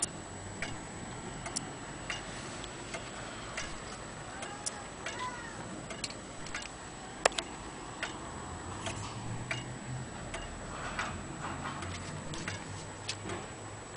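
Antique Vienna wall clock's pendulum movement ticking steadily, with one sharper, louder tick about seven seconds in.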